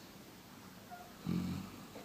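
Newfoundland dog snoring: one low snore about a second and a quarter in, lasting about half a second.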